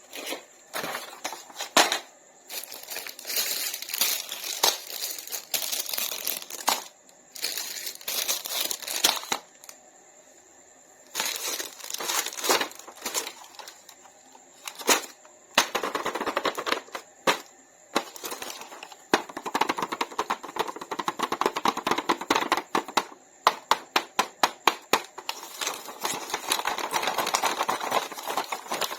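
Toy packaging being opened by hand: crinkling, rustling and tearing, broken by sharp clicks and knocks. A quiet pause comes about a third of the way in, and the last third is a dense, rapid rustling.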